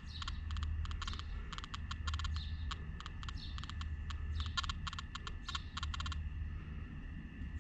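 Nokta Makro Anfibio Multi metal detector chattering from electromagnetic interference: uneven bursts of rapid, clicky beeps over a faint steady tone. The detector is falsing on EMI around the house while its gain is turned down.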